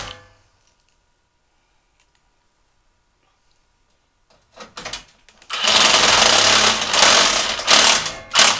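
Cordless power driver running a sheet-metal screw into the heater's outer shell. It gives a couple of short blips about four and a half seconds in, then runs for about three seconds and ends with one short burst.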